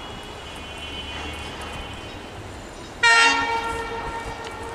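Bangladesh Railway diesel locomotive approaching with a low engine rumble. About three seconds in, it sounds its horn in one loud blast that fades slightly over the next second and a half.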